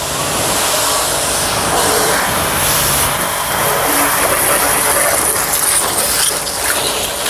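Vantro 1800 W electric pressure washer running at about 130 bar, its pump motor humming steadily under the hiss of the water jet spraying onto a car's bodywork.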